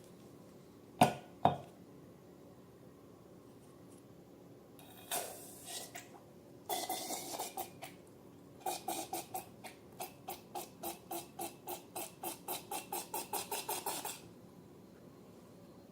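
Slime being worked and mixed: two sharp clicks about a second in, scattered sticky crackles, then a steady run of short squishing strokes about four a second that stops near the end.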